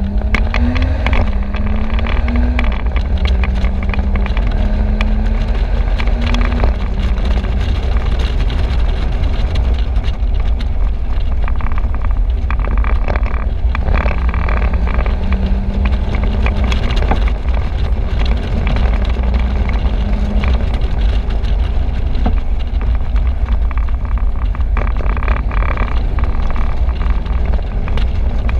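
Convertible with the top down at road speed: heavy wind buffeting on the microphone over tyre and road noise. The engine note climbs in the first second, then settles into a steady hum that fades after several seconds and comes back for a stretch in the middle.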